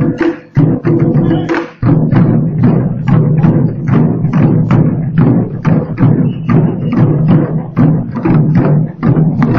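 An ensemble of large Chinese barrel drums beaten with wooden sticks in a loud, fast, driving beat, about four or five strokes a second. It breaks off briefly twice in the first two seconds, then runs on steadily.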